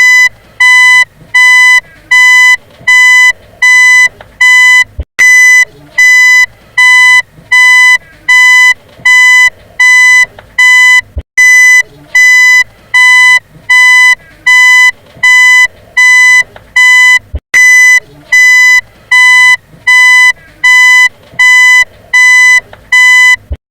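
Car reversing beeper sounding a steady, even train of loud, high-pitched beeps, about one and a half a second, each about half a second long. A short click comes about every six seconds.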